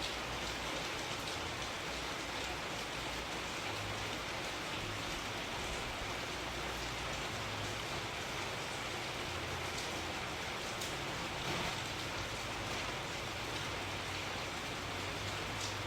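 Steady rainfall, an even hiss with scattered drops ticking.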